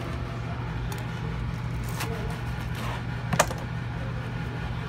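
A few sharp knocks, the loudest about three and a half seconds in, from a knife blade striking a plastic cutting board as a thick sandwich is cut in half, over a steady low hum.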